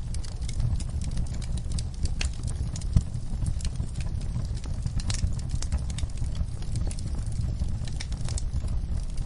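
Wood fire burning in a fireplace: a steady low rumble of flames with irregular crackles and pops, the sharpest pop about three seconds in.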